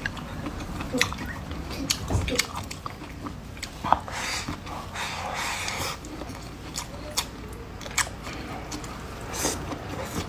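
People eating a meal: chewing and biting, with scattered light clicks.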